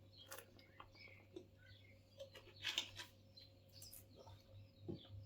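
Faint, scattered clicks and taps of cardboard jigsaw puzzle pieces being picked up and set down on a table, over a low steady hum.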